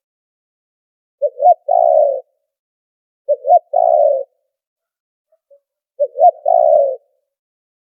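Spotted dove cooing, a male's territorial call used as a lure sound: three phrases about two to three seconds apart. Each phrase is two short rising coos followed by a longer, wavering coo, on a background with the noise filtered out.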